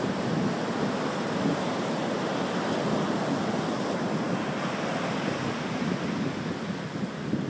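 Surf washing up a sandy beach: a steady rush of small breaking waves and wash.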